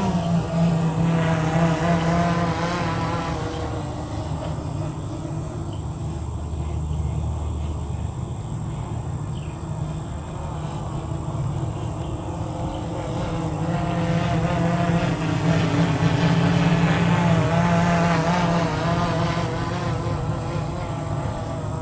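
Parrot Disco flying wing's electric motor and pusher propeller running in flight. It is a steady pitched buzz that drifts up and down in pitch and loudness, and grows louder through the last third.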